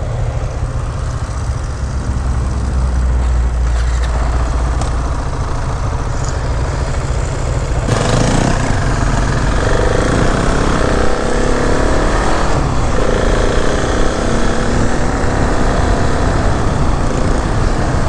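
KTM 690 SMC R's single-cylinder engine heard onboard, running low and steady for about eight seconds, then accelerating hard with its pitch rising in several runs as it shifts up through the gears.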